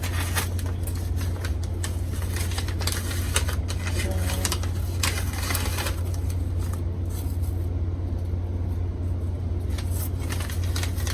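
Steady low hum under rustling and crinkling as the plant and its shipping wrapping are handled; the rustling thins out about two-thirds of the way through.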